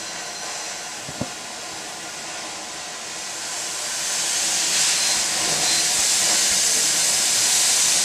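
Compressed air hissing as it is blown lightly into a planetary gearbox's oil return port to push the oil through the line. The steady hiss grows louder about four seconds in.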